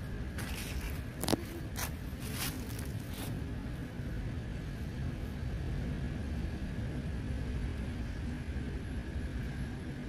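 Steady low outdoor rumble, with a few short scrapes and rustles in the first three seconds.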